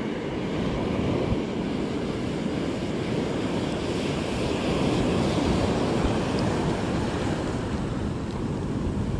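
Ocean surf breaking and washing up a sandy beach, with wind buffeting the microphone: a steady rushing noise.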